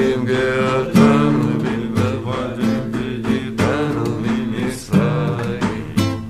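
Acoustic guitar strummed in a slow rhythm, about one strum a second, with a man singing along.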